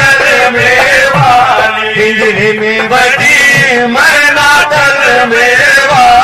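Sufi devotional kalam music: a continuous melody with sliding, ornamented pitches.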